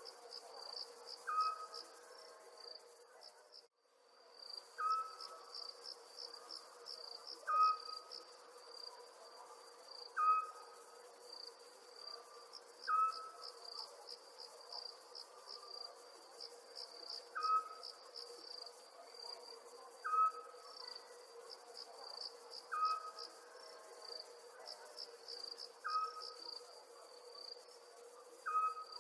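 Night chorus of crickets chirping in quick pulsing trains, with a short, louder call from another night animal repeating about every two and a half seconds over a faint steady hum. The sound cuts out briefly about four seconds in.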